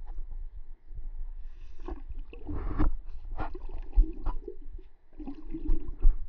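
Water gurgling and sloshing around a camera held underwater, with irregular bubbly bursts and knocks from handling, and a sharp knock near the end.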